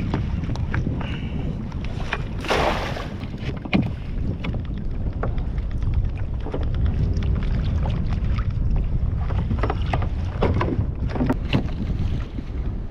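Wind rumbling on the microphone on a kayak on open water. Scattered knocks and clicks from handling gear run through it, with a brief rushing burst about two and a half seconds in.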